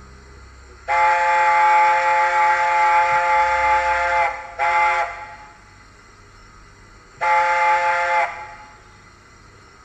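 Dapol Black Label A4 model locomotive's sound decoder playing the A4's chime whistle through its onboard speaker, several notes sounding together as one chord: a long blast of about three seconds, a short toot right after it, then a third blast of about a second.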